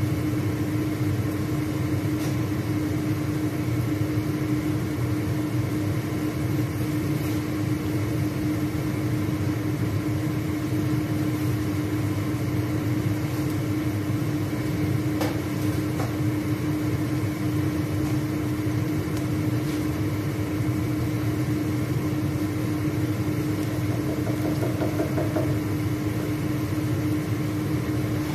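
Sliced onions frying in oil in a non-stick pan, sizzling steadily, under a constant low machine hum such as a kitchen exhaust fan.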